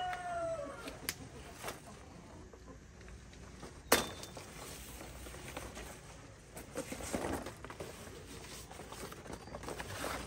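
A rooster's crow that ends about a second in, followed by a few light clicks, a sharp knock about four seconds in, and a brief rustle near seven seconds.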